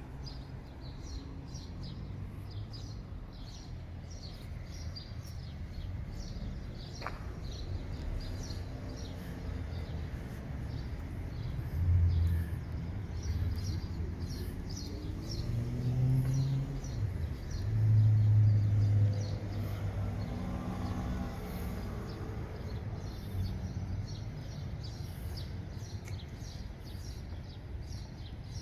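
Outdoor ambience of birds chirping over and over, with a low rumble that swells in the middle as a vehicle passes, and a single sharp click about seven seconds in.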